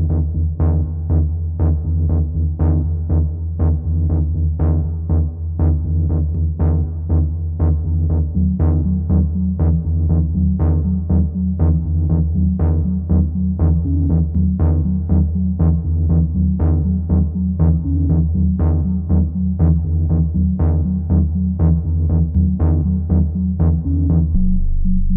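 Electronic synthesizer music: a steady pulse about twice a second over a held low bass drone, with a higher pitched line coming in about a third of the way through.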